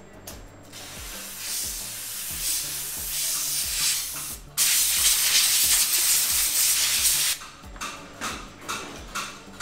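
Jewellery steam cleaner's nozzle hissing as it blasts a gold bangle clean: a softer hiss for a few seconds, a brief break, then a louder hiss for about three seconds that cuts off suddenly. A few light clicks follow near the end.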